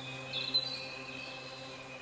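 Soft ambient background music: a steady low drone with held tones, and high bird-like chirps laid over it, the loudest about half a second in.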